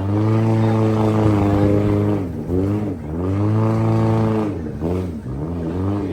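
Vehicle engine running, its pitch holding steady, then dropping and rising again a few times as the revs change.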